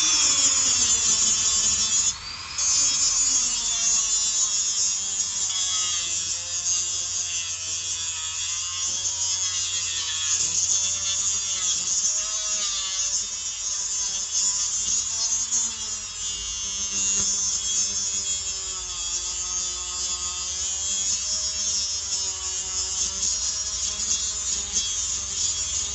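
Dremel rotary tool grinding the rivet head off a link of an endless O-ring motorcycle drive chain, a high-speed whine that wavers up and down in pitch as the tool bites and eases off. It drops out briefly about two seconds in, then runs on.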